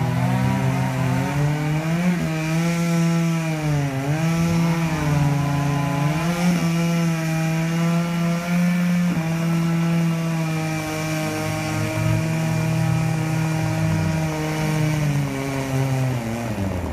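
Two chainsaws running together at different pitches, cutting into the trunk of a large felled mango tree. Their engine notes sag and pick up again as the chains bite into the wood, and both drop off near the end as the throttles are released.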